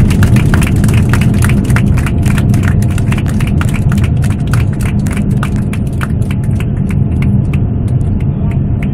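Heavy, steady low rumble inside the cabin of a Boeing 787 Dreamliner rolling out on the runway after touchdown, with its wing spoilers raised. Passengers clap over it, and the clapping thins out over the last few seconds.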